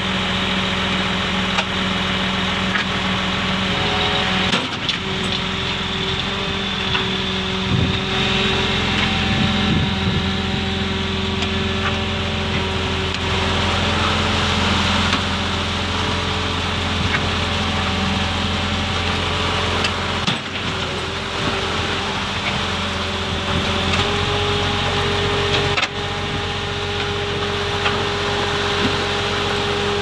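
Diesel engines of a transit mixer truck and a truck-mounted concrete pump running steadily under load, with wet concrete sliding down the mixer's chute into the pump hopper; the engine note shifts slightly a couple of times.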